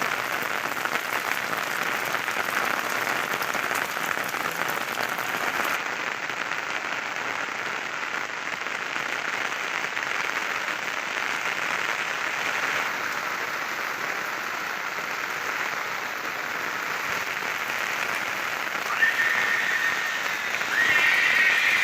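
Heavy rain falling steadily, a dense even hiss. Near the end a brief high-pitched call sounds twice over the rain.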